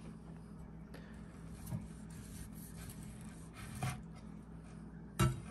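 A knife slicing through a thick grilled steak on a wooden cutting board: faint rasping strokes through the seared crust, then one sharp knock of the knife or meat on the board near the end.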